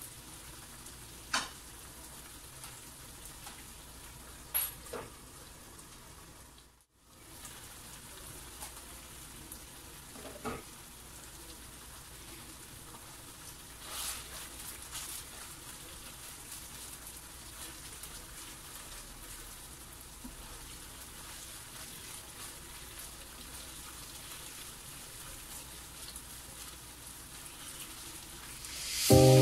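Thin beef strips sizzling steadily in sauce in a non-stick frying pan, with a few sharp clicks and scrapes from a plastic slotted spatula stirring them. Music comes in at the very end.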